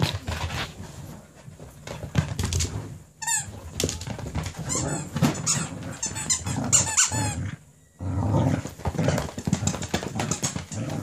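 A Cardigan Welsh corgi scrambling about on a wooden floor in an excited frenzy, with paws scrabbling and knocking and several short high squeaks.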